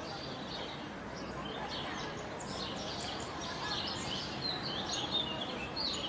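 Small birds chirping and twittering, getting busier from about two and a half seconds in, over steady background noise.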